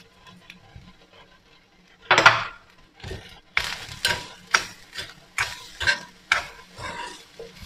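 Steel spoon stirring grated coconut and sugar in a pan, scraping against the pan. After a quiet start, a long scrape comes about two seconds in, then regular scraping strokes about twice a second.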